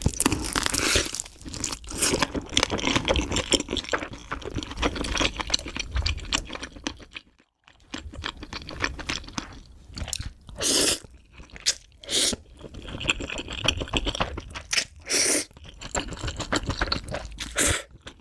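Close-miked ASMR eating of spicy chicken noodles, chicken thigh and enoki mushrooms: wet chewing and crunching, with a brief pause about seven seconds in and a few short louder bursts in the second half.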